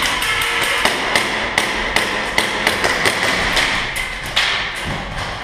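Airsoft gunfire in an indoor arena: an irregular run of sharp clacks, about three or four a second, from guns firing and BBs striking walls and barricades.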